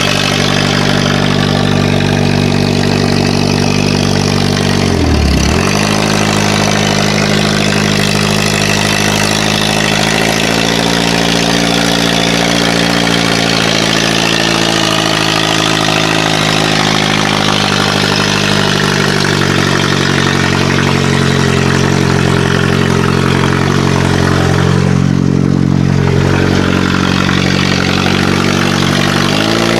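Honda B20 four-cylinder engine running steadily as the lifted all-wheel-drive Civic with its automatic transmission is driven slowly; the engine note drops sharply for a moment about five seconds in and comes back up. The car has little power on this drive, which the owner thinks could be the wrong gear, hanging calipers or the torque converter.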